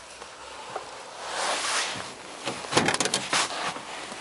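VAZ 1116 Oka driver's door being opened from inside: a brief rustle, then a quick cluster of sharp clicks and knocks near the end as the interior handle is pulled and the latch releases.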